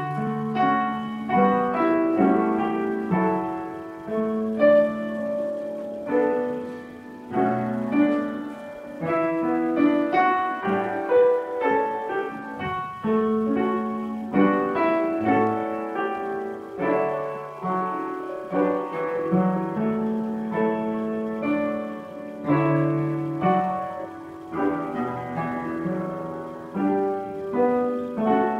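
Piano playing a church prelude: an unhurried piece of struck chords and melody notes, each note dying away before the next.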